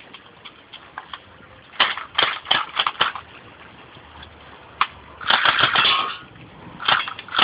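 Cheap BB guns firing: a quick run of five sharp cracks about two seconds in, a single shot near the middle, then a burst of metallic clattering and one more crack near the end.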